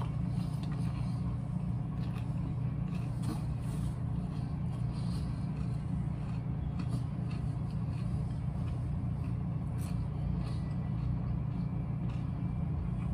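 Steady low machine hum, with faint chewing and a few soft mouth clicks from someone eating a chicken sandwich.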